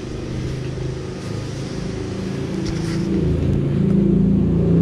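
A motor vehicle engine running steadily, growing louder from about three seconds in.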